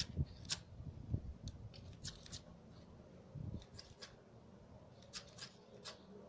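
Faint, irregular clicks and light taps, likely small metal parts and tools being handled while an air-powered grinder is repaired.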